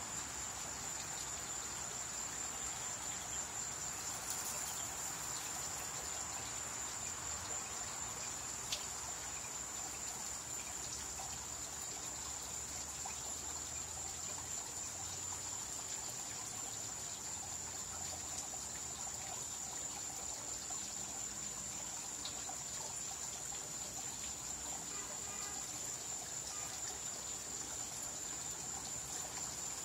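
A steady high-pitched chorus of crickets over a soft trickle of water, with a single click about nine seconds in.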